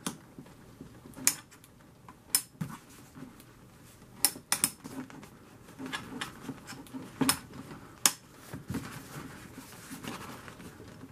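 Sharp clicks and light knocks of a hard plastic 1/24 slot car being handled and turned over, about eight scattered taps with quieter rustling between them.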